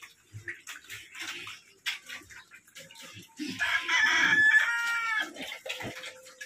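A rooster crows once, about three and a half seconds in, for roughly a second and a half. Pigs are chomping and smacking at a feeding trough throughout.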